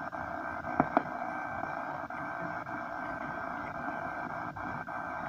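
Steady radio static hiss with a faint, steady high tone running through it, and two sharp clicks about a second in.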